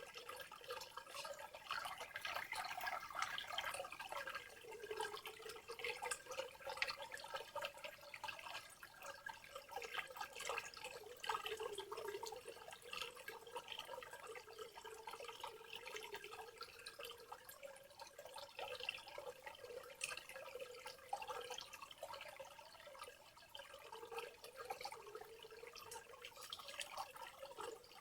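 Rainforest ambience of water dripping and trickling in many small irregular drops, with a faint steady high tone running underneath.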